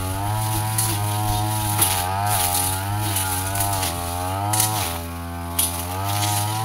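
Petrol brush cutter engine running under load as it cuts through scrub, its pitch sagging and recovering again and again as the blade bites into the growth. A little past halfway the revs drop briefly, then climb again.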